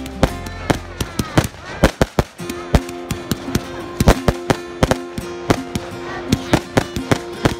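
Aerial fireworks going off in rapid, irregular succession: many sharp bangs and crackles, with music playing underneath.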